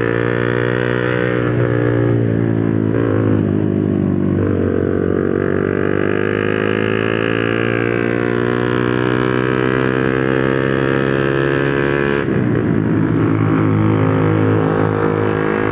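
Honda RS150R's single-cylinder four-stroke engine, breathing through an open Espada 32 mm exhaust, running under way. Its note holds steady, shifts pitch about four seconds in, climbs slowly, then drops suddenly about twelve seconds in.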